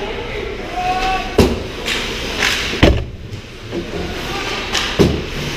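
Ice hockey play at the net: three sharp knocks of stick and puck, about one to two seconds apart, with a brief hiss of skate blades scraping the ice between them, over the steady rink noise.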